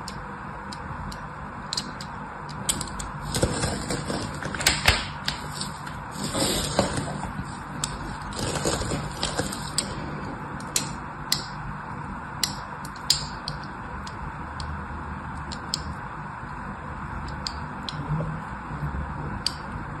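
A thin knife blade scoring lines into bar soap: short crisp scratches and clicks, busiest in the first half, then single sparse ticks.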